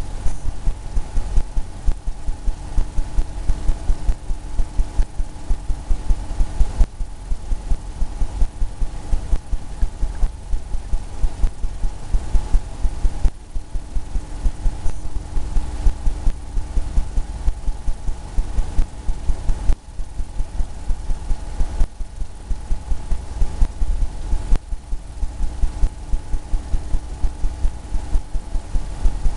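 Paintbrush tapping paint onto a stretched canvas, an even run of low thumps about three a second, pausing briefly every few seconds. A faint steady hum underneath.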